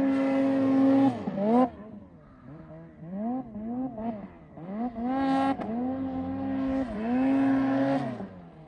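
Snowmobile engine revving hard in deep snow: held at high revs, dropping off about a second in, then a run of short rising-and-falling throttle blips, and held high again twice before it falls away near the end.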